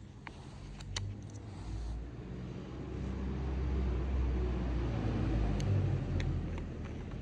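A low rumble that builds over the first few seconds, holds, and eases near the end, with a few light clicks of the small plastic brush holder of a car window regulator motor being handled.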